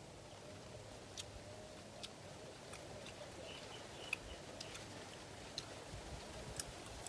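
Faint eating noises: a few sharp mouth clicks and smacks, scattered irregularly, from people chewing food eaten with their fingers.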